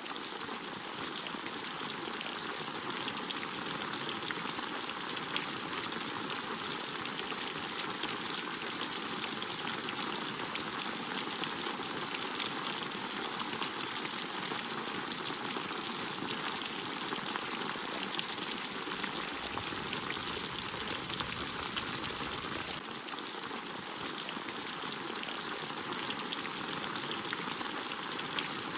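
Steady rain falling: a dense, even hiss of many drops. For a few seconds about two-thirds of the way through, a low rumble joins in and then stops abruptly.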